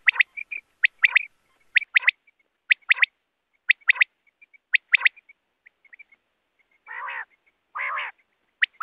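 Quail calling: short, sharp, high notes in quick groups of two or three, repeated about once a second. About seven and eight seconds in come two longer, rougher calls that sit lower in pitch.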